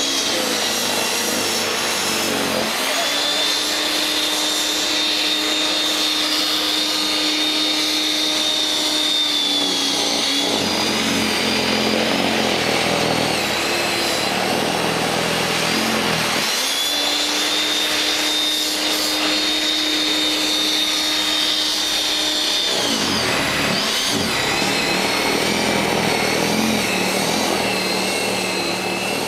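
WEN 5662 13.5-amp electric snow thrower running, its motor and auger making a steady whine. Twice the pitch drops and wavers as the motor bogs down under load, consistent with heavy, wet snow straining it.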